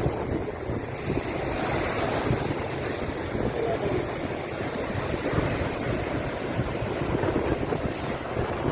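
Surf and rushing water where a river runs into the sea, with wind buffeting the microphone in uneven low gusts.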